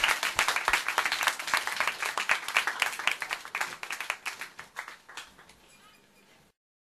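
Applause that thins to a few scattered claps and fades away, then cuts off into complete silence near the end.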